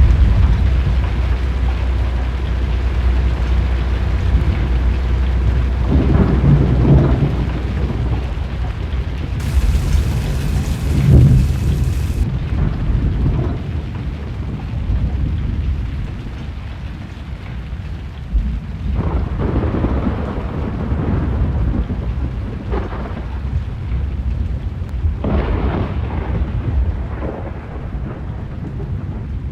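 Severe thunderstorm: repeated rolls of thunder over steady rain. The loudest rumbles come right at the start and again about eleven seconds in.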